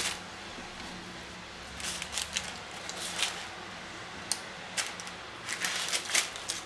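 A crusty bread roll being pulled apart and pressed shut around grilled sausages, its crust crackling against a crinkling paper napkin in scattered short rustles and clicks. There is a sharp click at the very start.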